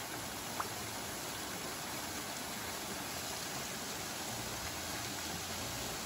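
Steady rush of a small waterfall splashing into a shallow, rocky stream. There is a single short high chirp about half a second in.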